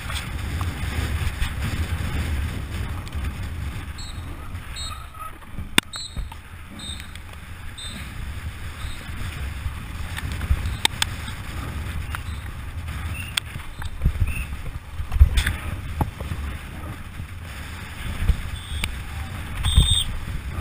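Mountain bike descending a dirt trail at speed: wind rushing over the microphone and the rumble of tyres on dirt, with the bike clattering over bumps and several sharp knocks.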